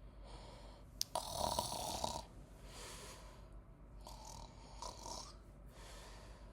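A person snoring: a brief click about a second in, then one loud snore, followed by several quieter snoring breaths.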